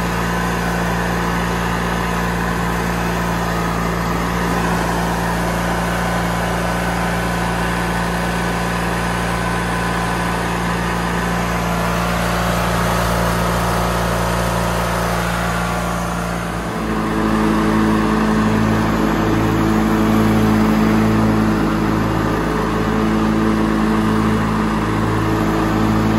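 Riding mower's Briggs & Stratton engine running steadily while the mower is driven. About two-thirds of the way in, the sound changes and grows louder, with a pulsing beat.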